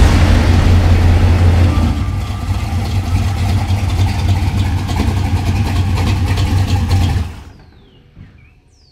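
Loud engine of a 1983 Chevy C10 pickup, a big-inch small-block Chevy stroker V8, running with a deep steady note; it eases slightly about two seconds in and drops away about seven seconds in.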